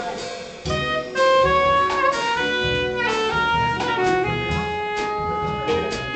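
Live small-group jazz: a soprano saxophone plays a melody over plucked upright bass and drums, the saxophone growing louder about a second in.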